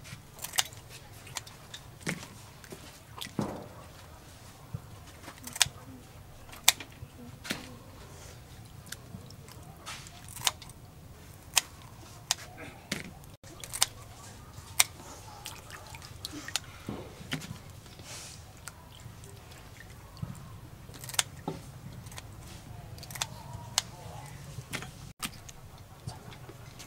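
Kitchen scissors snipping the shells and feelers of fresh whole prawns: sharp, irregular clicks, about one every second or two.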